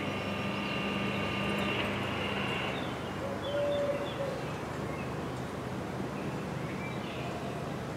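Electric level-crossing warning bells ringing with a steady high ring, which cuts off about three seconds in. After that there is street background with short bird-like chirps.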